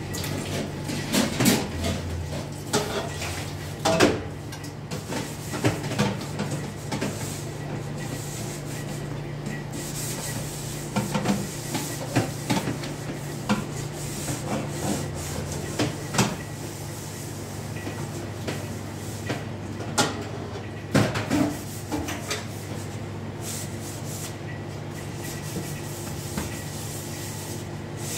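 A sponge scrubbing large round metal trays in a stainless steel sink, with knocks and clanks of the metal pans now and then. A steady low hum runs underneath.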